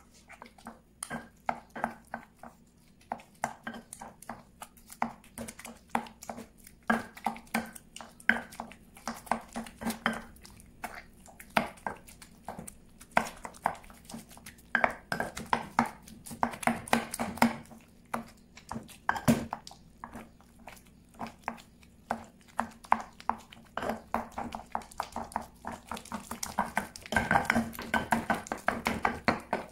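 Stone pestle mashing avocados in a volcanic-stone molcajete mortar: a run of irregular knocks and scrapes of stone on stone as the fruit is crushed. The knocks come faster and louder near the end.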